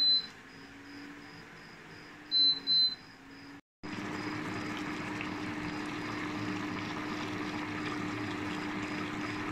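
Induction cooktop touch controls beeping as the heat is turned down: one beep, then two more quick beeps about two and a half seconds in, over a steady low hum. After a cut, thick bean stew simmering and bubbling in the pot, with the low hum continuing.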